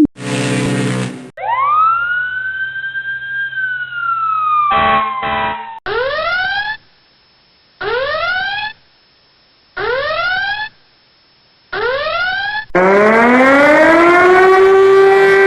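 A sequence of electronic alarm and siren sounds: a short harsh buzz, then a siren tone that sweeps up and slowly falls, then four rising "whoop" tones about two seconds apart, and near the end a siren that winds up and holds a steady, rich tone like a civil-defence siren.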